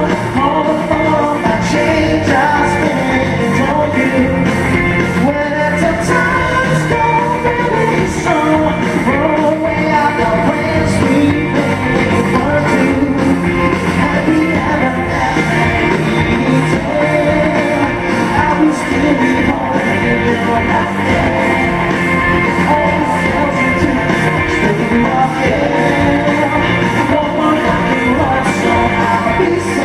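Live band playing a rock arrangement, loud and steady, with singing over it.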